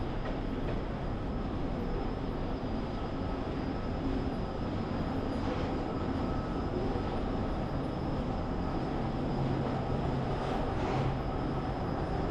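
Steady low rumble of city street noise, with no single sound standing out.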